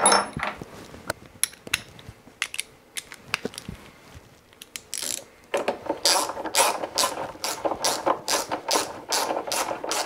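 Ratchet clicking as it tightens the nut on a washing machine heating element, drawing the element's rubber seal tight in the tub. A few scattered clicks and knocks come first, then about halfway through a steady run of ratchet clicks, about three a second.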